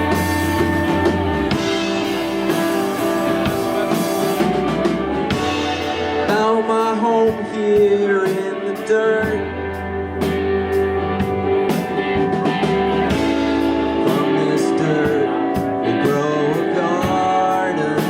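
Rock band playing live: electric guitar, bass and drum kit, with a bending melodic line, a lead guitar or voice, coming in about six seconds in.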